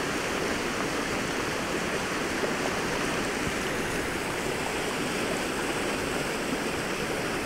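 River water rushing steadily over a low weir.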